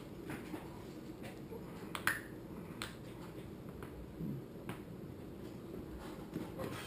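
Spoon clicking against a bowl while eating ice cream: a few sharp, separate clicks over low, steady room noise.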